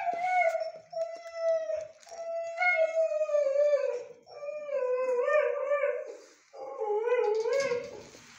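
A dog whining in about four long, howl-like cries, one after another, the later ones wavering up and down in pitch.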